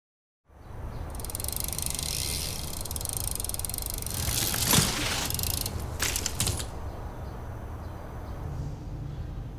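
BMX bike rolling on concrete, its freewheel hub ticking in a fast buzz, with a few sharp clicks and knocks about four to six and a half seconds in. A low steady rumble runs underneath and is all that is left near the end.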